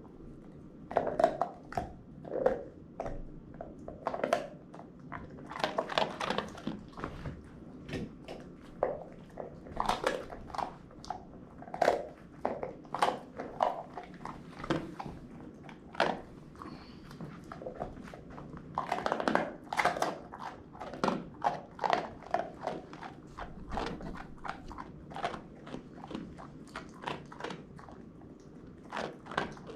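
A dog chewing and biting on a crunchy pink donut: irregular crunches and clicks of its teeth, sometimes in quick clusters, with short pauses between.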